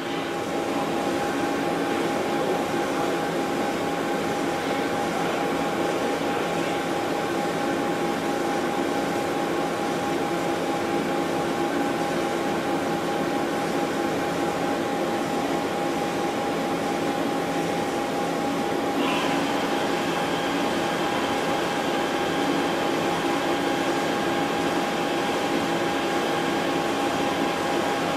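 HAAS HS-1RP horizontal machining centre running under power: a steady mechanical hum with several held whining tones. About two-thirds of the way through, a brief pitch slide is followed by a new higher whine that carries on.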